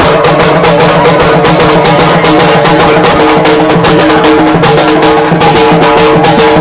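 Halgi frame drum beaten fast with two sticks in a dense, driving rhythm, over a steady held tone.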